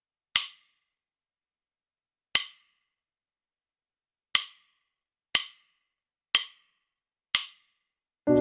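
A count-in of six sharp clicks, two seconds apart at first and then one second apart. Right at the end a sustained electric piano chord comes in on the keyboard.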